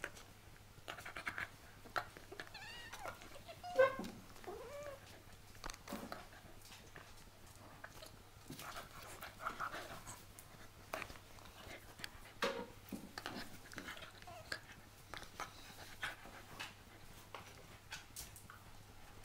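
A kitten and a small dog play fighting at close range: scuffling, scratching and pawing, with scattered clicks and rustles. A few short pitched cries come from the animals, the loudest about four seconds in and another near twelve seconds.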